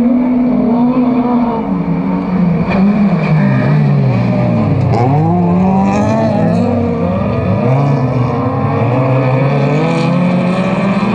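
Several autocross cars' engines racing in a pack, revving hard. The engine notes rise and fall as the cars change gear and pass, with a sharp swoop in pitch about five seconds in as cars go by.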